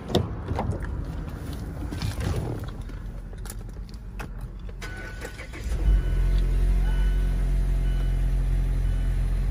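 A few knocks and clicks as the car door is opened and someone gets in, then about six seconds in the 2014 Mazda CX-5's four-cylinder petrol engine starts and settles into a steady idle.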